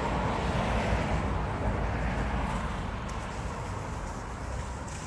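Wind buffeting the microphone outdoors: a steady low rumble with a hiss over it, easing slightly toward the end.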